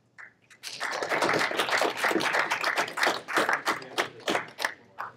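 Small audience clapping, a dense patter of hand claps that starts under a second in and thins out near the end.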